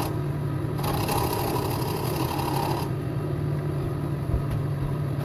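Wood lathe running with a steady motor hum. A turning gouge cuts the spinning wood with a hiss for about two seconds starting near the first second, then the lathe runs on alone.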